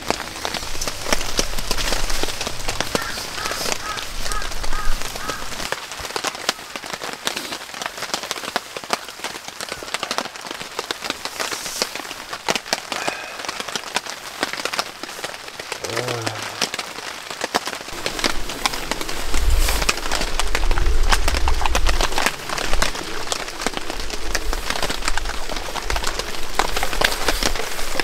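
Heavy rain falling steadily, with many close drops hitting a surface in sharp, dense patters. A bird calls a few quick repeated notes a few seconds in, and a low rumble swells for a few seconds past the middle.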